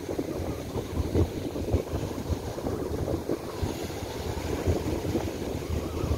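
Strong gusty wind buffeting the microphone in an uneven low rumble, over the wash of surf breaking on a sandy beach.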